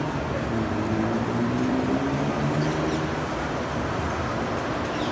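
City street traffic ambience: a steady wash of road noise with a passing vehicle's engine hum that rises slightly in pitch and fades out about three seconds in.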